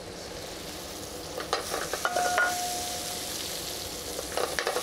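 Small potatoes frying in oil in a stainless sauté pan, sizzling steadily; young onions are tipped in from a ceramic bowl and the sizzle grows louder about a second and a half in. A few knocks and a short ringing note come with the tipping.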